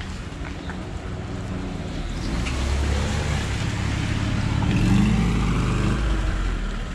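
A motor vehicle passing close by: a low engine rumble that builds over about three seconds, is loudest a little past the middle, and fades near the end.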